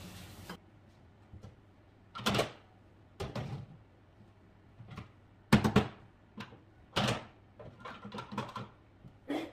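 Scattered knocks and clunks of kitchen utensils and cookware being handled and set down, about a dozen separate strikes, the loudest about five and a half seconds in. A faint hiss cuts off about half a second in.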